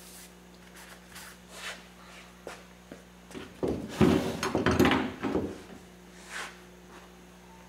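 A few faint rag-wiping swishes on the glued fabric edge, then about two seconds of knocking and rubbing handling noise against the wooden work bench, the loudest part, around the middle.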